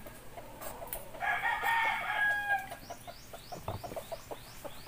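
A rooster crows once, starting about a second in and lasting about a second and a half, amid a run of short, quick clicking sounds.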